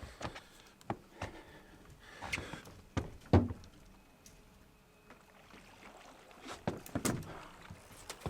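Irregular knocks and thumps on a small boat, the loudest about three seconds in and another cluster near the end, as a snagged fishing line is worked.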